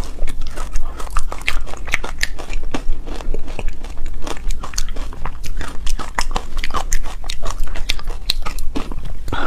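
Close-miked chewing and crunching of frozen matcha ice, a dense run of sharp crackles and crunches with no pause.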